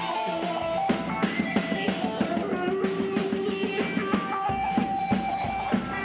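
Live Turkish folk dance music for a halay line dance: a plucked-string melody over a steady drum beat that comes in about a second in, with deeper bass joining later.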